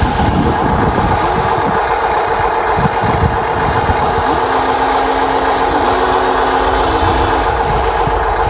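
Remote-control excavator and truck models running, with a steady motor whine over a rough rumble. About four seconds in, a second motor tone starts, rises and shifts in pitch, then stops near the end.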